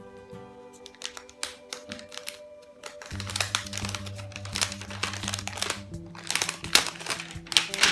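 Thin plastic protective film crinkling and crackling as gloved hands peel and smooth it on a laptop's underside, the crackles getting denser about three seconds in. Background music with sustained notes plays throughout.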